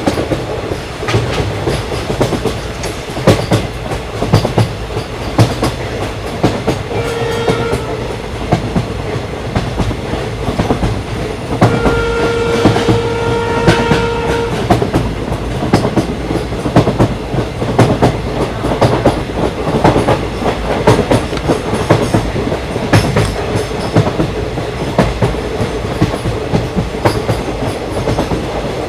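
Train running with the rhythmic clickety-clack of wheels over rail joints. It sounds its horn twice: a short toot about seven seconds in, then a longer one of nearly three seconds about twelve seconds in.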